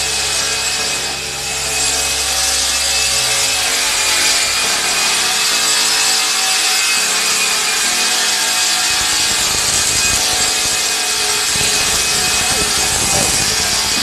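A power tool or machine running steadily, a loud even whirring hiss with a faint high whine; a low hum underneath cuts out a few seconds in.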